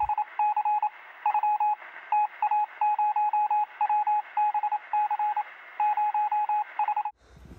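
Short electronic beeps at one steady pitch, coming in quick irregular clusters of a few beeps each over a faint hiss, with a thin, tinny tone.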